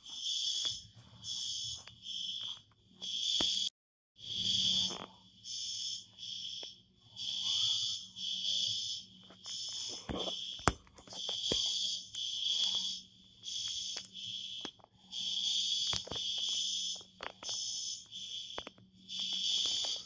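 Apartment building's fire alarm sounding in repeated high-pitched pulses, each about half a second long, calling residents to evacuate.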